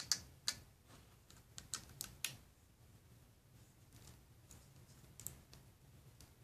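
Plastic LEGO bricks clicking as pieces are pressed onto a model and handled: a quick run of sharp clicks in the first two and a half seconds, then one more about five seconds in.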